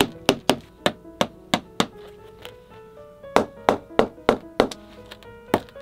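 Shoemaker's hammer tapping the black felt panel down onto a handmade hiking boot's upper, about three sharp knocks a second, pausing for about a second near the middle, then resuming. Background music plays underneath.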